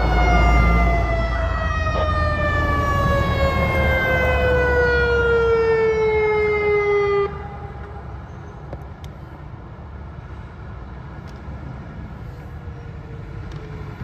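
Federal Signal Modulator 6024 warning siren winding down as its Alert signal is cancelled: one loud tone with its overtones gliding steadily down in pitch for about seven seconds, then dropping away abruptly. Road traffic rumbles underneath.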